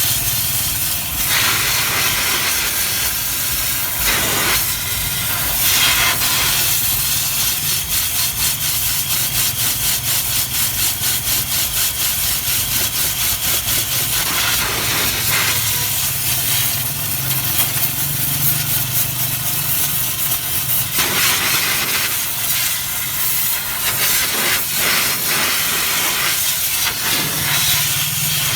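Steady spraying hiss with rhythmic scrubbing strokes, several a second, from spray cleaner and a brush working over a grimy engine bay. A low steady hum runs underneath.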